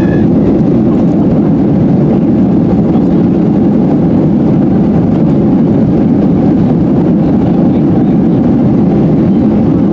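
Steady, loud rumble of a Boeing 737-800's engines and airflow, heard inside the passenger cabin from a seat behind the wing.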